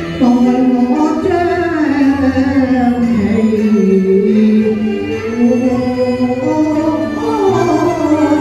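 Cantonese opera singing: a woman sings a slow, ornamented melody with vibrato in pinghou, the natural-voice style of a male role, over instrumental accompaniment.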